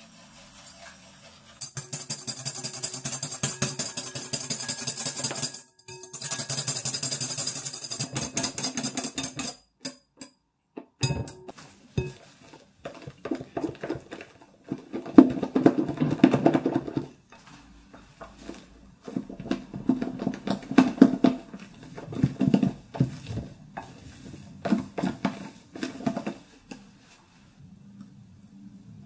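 Wire whisk beating egg whites and sugar in a glass bowl. First come two long runs of fast, even strokes, with the wires clattering against the glass. Then come slower, duller bursts of whisking as the meringue stiffens, with short pauses between them.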